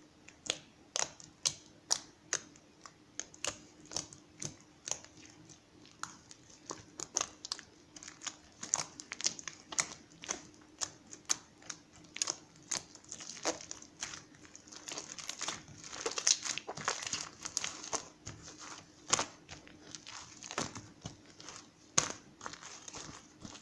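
Irregular small clicks and crinkling, about two or three clicks a second, busier and more crinkly around the middle, over a faint steady hum.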